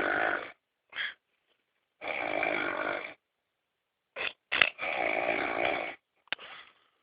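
Snoring: long snores of about a second or more each, coming roughly every two to two and a half seconds, with short brief sounds in between.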